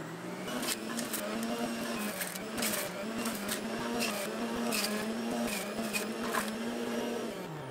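Electric centrifugal juicer running: a steady motor hum with scattered crunches and clicks as strawberries are pushed down the feed chute onto the spinning cutter. The motor winds down near the end.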